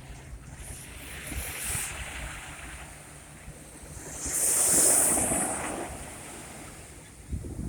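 Sea waves washing onto the shore: a small wave about one and a half seconds in and a bigger, louder one breaking about five seconds in. Wind rumbles on the microphone throughout.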